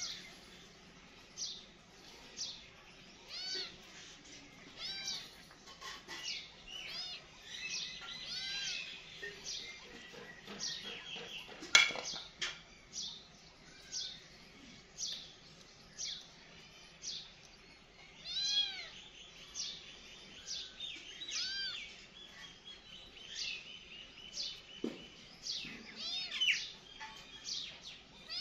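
A kitten mewing over and over in short, high-pitched calls, about one a second. A single sharp click about halfway through is the loudest sound.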